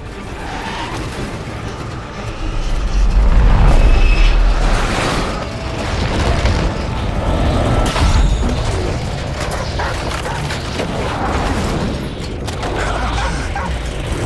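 Film sound design of a tornado striking an RV: a dense rush of wind over a deep rumble, swelling loudest around three to five seconds in, with knocking and rattling throughout and a sharp bang about eight seconds in.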